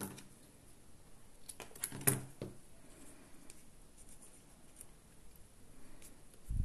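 Quiet handling of paper and cardboard craft pieces on a work table: a few light taps and clicks, most of them bunched together about two seconds in.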